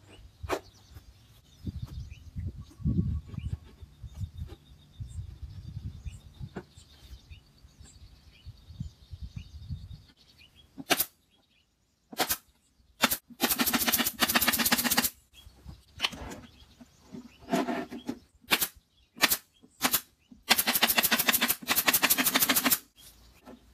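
Wooden MDF panels knocked and handled while a subwoofer box is put together. After that come sharp single clicks and two rapid rattling bursts from a power fastening tool driving the panels together, each burst lasting a second or two.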